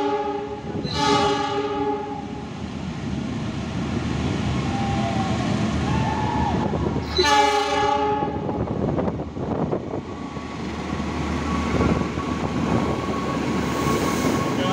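Indonesian diesel locomotive horn blowing three blasts: one trailing off at the start, one at about a second in, and one at about seven seconds in. It is followed by the rumble of the train running past.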